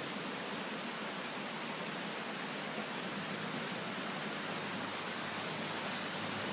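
Steady, even rushing of a creek's flowing water.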